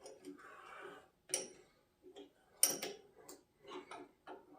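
A wrench tightening a battery terminal clamp: scattered sharp metallic clicks and taps, the loudest about a second and a half in and again near three seconds.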